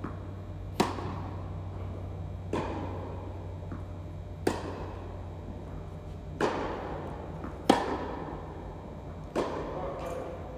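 Tennis rally in an indoor court hall: about six sharp pops of the ball coming off racquet strings, roughly one every two seconds, each followed by a short echo. Some pops are softer than others, over a steady low hum.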